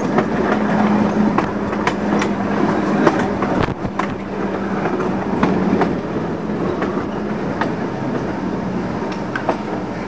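PCC streetcar running along jointed track: wheels rumbling with irregular sharp clicks over the rail joints, under a steady low hum from the running gear that drops slightly in pitch a few seconds in.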